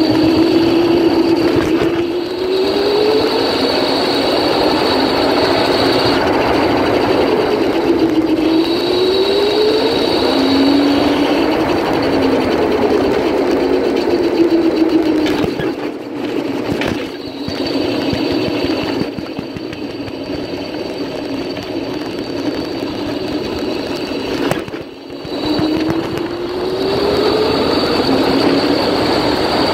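Electric go-kart's motor whining under way, its pitch rising several times as the kart speeds up and once falling as it slows, over a steady high whine and a rushing noise of tyres and wind. The sound drops briefly near the end before picking up again.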